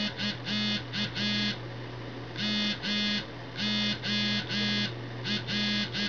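Motorola Android phone's vibration motor buzzing out Morse code in long and short pulses at 10 words per minute: the start signal (dash-dot-dash-dot-dash), then the letters M, O and R of the preview word "Morse".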